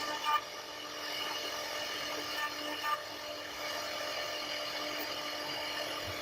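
CNC router spindle running with a steady whine while cutting wood, with a few brief louder knocks from the cut.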